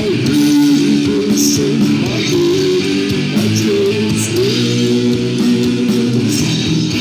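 Metal band playing an instrumental stretch with electric guitar and bass, in a poor-quality, distorted recording.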